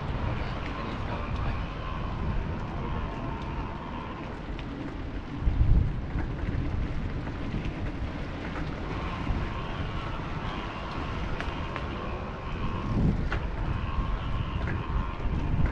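Wind buffeting a bike-mounted action camera's microphone while riding, an uneven low rumble with stronger gusts about five and a half seconds in and again near thirteen seconds.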